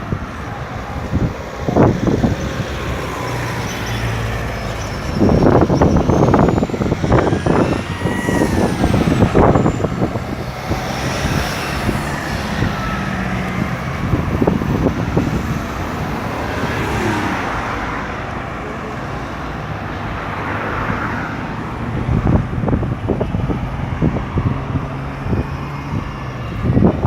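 Steady road traffic at a busy roundabout: cars, trucks and buses running past, with louder surges as vehicles pass close.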